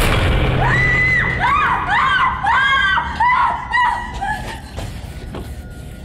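A loud crash dies away at the start. Then comes a run of high-pitched shrieks, wavering rising-and-falling cries that overlap one another for about four seconds before tailing off.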